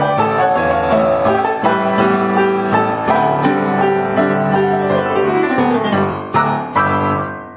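Soundtrack piano music playing slow sustained notes and chords, with two louder chords struck near the end before it starts to fade out.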